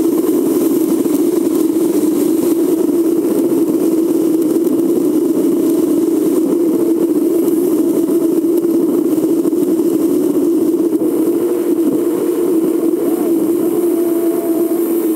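A camper driving at steady speed through a road tunnel: a constant engine and road drone that holds the same level all the way through.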